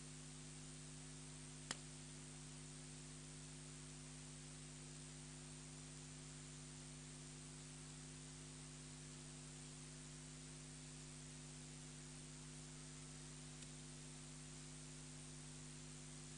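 Near silence: steady hiss and electrical hum on the audio line, with a single sharp click about two seconds in.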